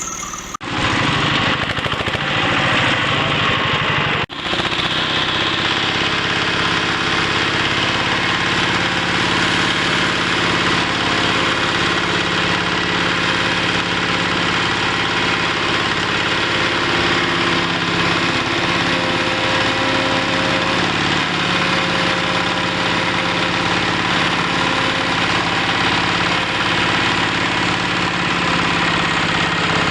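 Wood chipper's engine running steadily, with a busy knocking vibration, briefly cut off twice in the first few seconds.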